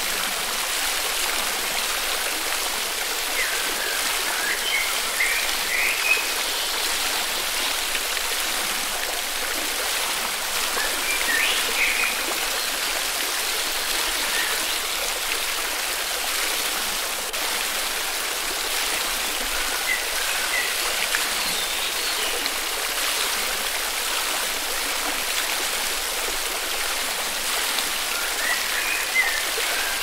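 Forest river flowing with a steady rushing. Short bird chirps come through a few times: about four and eleven seconds in, around twenty seconds, and near the end.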